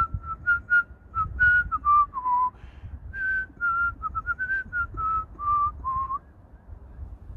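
A person whistling a tune: a string of about fifteen short, clear notes moving up and down in pitch, stopping about six seconds in.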